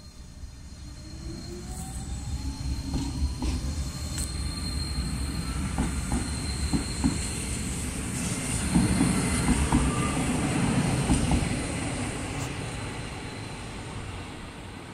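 Renfe commuter electric train pulling away and passing close by. A motor whine rises in pitch as it gathers speed, with a low rumble and sharp knocks from the wheels on the rails. It is loudest as the train goes by about eight to eleven seconds in, then fades as it moves away.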